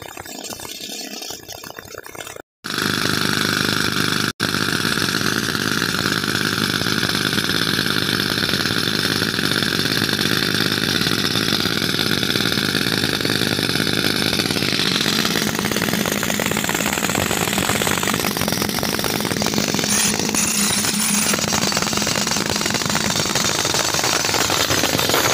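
Pneumatic rock drill run by an air compressor, hammering and boring a hole into sandstone: a loud, steady, dense rattle. It comes in loudly about two and a half seconds in.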